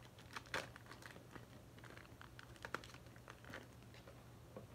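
Faint rustling and a few sharp clicks of wrapped trading-card packs being handled and lifted out of a cardboard box.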